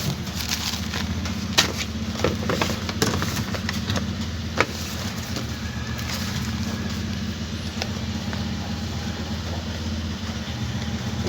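Steady low hum, with a handful of sharp clicks and scrapes in the first five seconds as hand tools pry at a washing machine's circuit board.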